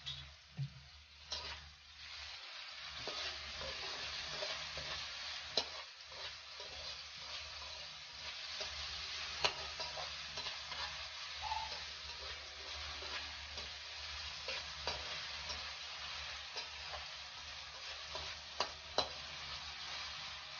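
Sliced onions, chilies and garlic sizzling in hot oil in a metal wok, with a metal spatula scraping and clicking against the pan as they are stirred. The sizzle builds up about two seconds in, and a few sharper clicks of the spatula stand out near the middle and near the end.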